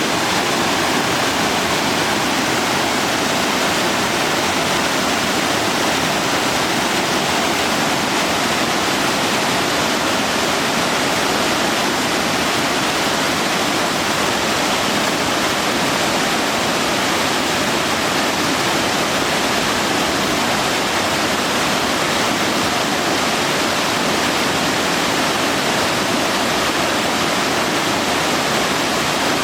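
Loud, steady rush of the Otún River's fast water running over rocks.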